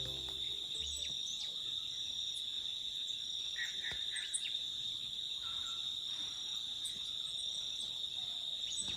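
A steady, high-pitched chorus of insects, a continuous drone, with a few short chirps around the middle. The last notes of a music track die away in the first second.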